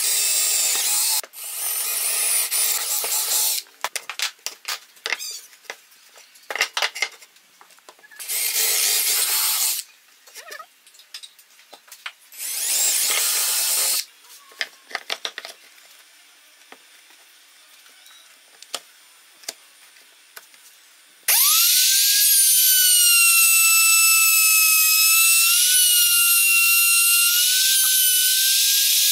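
Cordless drill boring holes through a wooden board in four short runs, with handling clicks between them. About two-thirds of the way through, a compact trim router starts up with a rising whine and then runs steadily at high speed.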